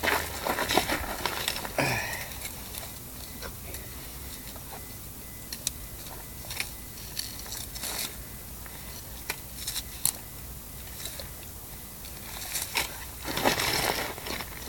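Rustling and handling noises close to the microphone as the angler moves about in his jacket, with scattered faint clicks; a dense patch of rustling in the first two seconds and another near the end.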